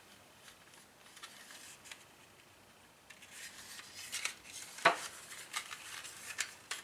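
Light clicks and taps of hard plastic model-kit parts being handled. It is nearly quiet at first, then clicks come scattered from about halfway, with one sharper click near five seconds in.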